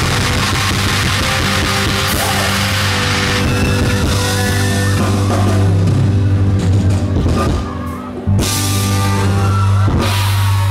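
Live rock band playing loud through the stage PA, with electric guitar and drums over held low chords. A bright wash on top thins out after the first few seconds, and the band drops out briefly about three quarters of the way through before coming back on a held chord.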